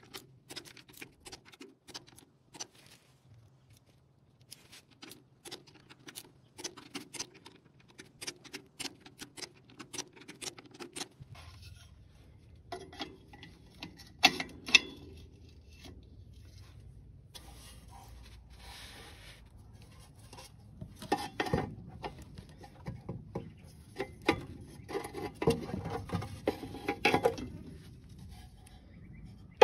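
Socket ratchet clicking in short runs while a bolt on the tractor's oil pump is turned in. Later come louder metal knocks, clanks and scraping as the steel oil pan is handled up into place.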